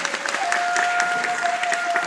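Audience applauding while a shakuhachi plays. Its note steps up about half a second in and then holds steady.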